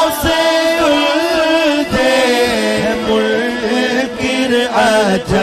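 Male voice singing an Urdu naat in long, held, winding notes, with no instruments heard, carried over a loudspeaker system.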